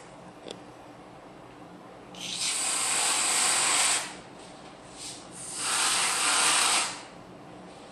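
Aerosol whipped-cream can spraying: two long hisses, about two seconds and then a second and a half, with a short spurt between them.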